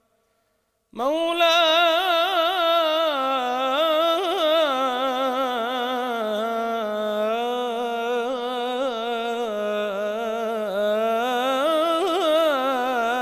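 A man's solo chanting voice sings a religious munajat (supplication) in maqam saba. About a second in, after a moment of silence, it begins one long wordless melisma, its pitch quavering and turning in fast ornaments.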